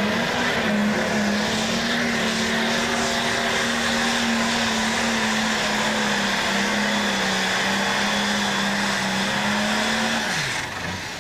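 Super stock pulling tractor's diesel engine at full throttle under load during a pull: a loud, steady, high-revving note with a slight waver. Near the end the revs fall away sharply and the engine gets quieter.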